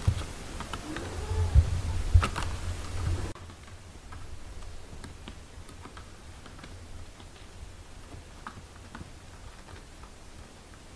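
Kittens suckling at their mother cat, with faint, irregular small clicks and smacks. In the first three seconds there is a short, soft cat mew and a few low knocks, then the sound drops suddenly.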